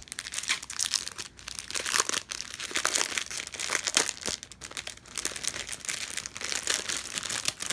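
Clear plastic packaging crinkling as strips of foil-backed diamond-painting drill packets are handled and pulled out of their sleeve: a steady run of crackles and quick clicks.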